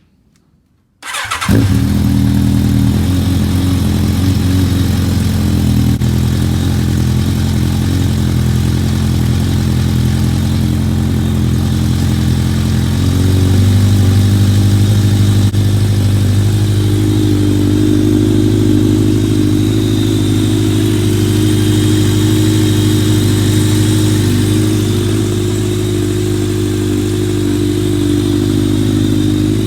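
Kawasaki ZRX1200 DAEG's inline-four engine starting about a second in and then idling steadily, its idle rising a little about halfway through and settling lower near the end, with freshly changed oil.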